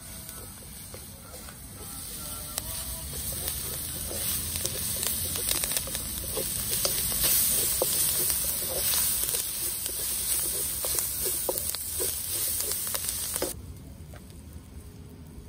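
Food frying in hot oil, sizzling with many small crackles. It builds over the first couple of seconds and cuts off abruptly near the end.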